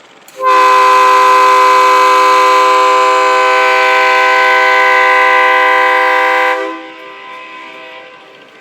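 A boat's horn sounding one long steady blast of about six seconds, several pitches together, starting about half a second in and cutting off sharply.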